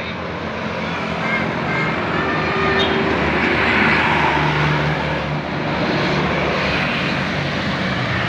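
Tour bus driving past at close range, its engine and tyre noise swelling to a peak about four seconds in and then easing off.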